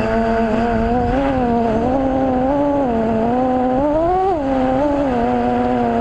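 FPV drone's electric motors and propellers whining in flight, the pitch rising and dipping with the throttle, with a sharper climb about four seconds in, over a low rumble.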